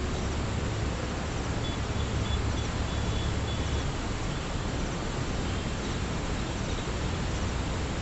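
Steady outdoor wind noise rumbling on the microphone, with a few faint high chirps about two to three seconds in.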